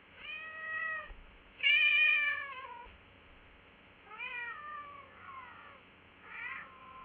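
Domestic cat meowing, about five separate meows in a row; the second is the loudest and longest, and the last one trails off into a held note.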